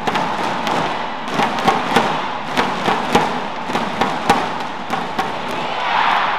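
Badminton rally: rackets striking the shuttlecock in quick exchanges, sharp hits about every half second, over steady crowd noise in the hall. The crowd swells near the end.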